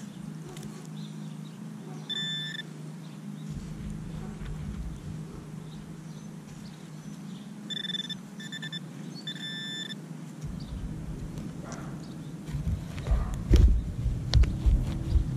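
Metal detector sounding short, high beeps over a buried target that reads like a silver dime: one beep, then three more about five seconds later. In the last few seconds there are heavy thuds and knocks.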